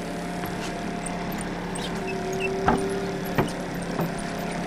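Small Yamaha four-stroke outboard motor running steadily with an even hum, with three short sharp knocks in the second half.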